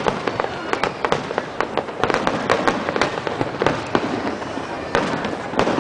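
Fireworks going off: a dense, irregular run of sharp cracks and bangs, several a second, with a constant crackle between them.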